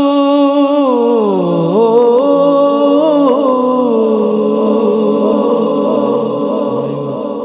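A man singing a naat unaccompanied, drawing out one long melismatic note. He holds a steady pitch, slides down about a second in, wavers through ornamented turns, and settles on a lower sustained note that grows quieter toward the end.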